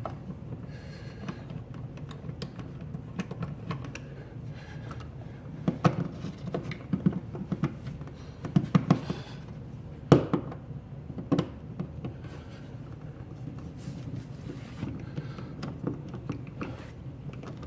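Electrical outlet being fitted into a wall box while its mounting screws are started: scattered small clicks, scrapes and metal taps, with a sharper knock about ten seconds in.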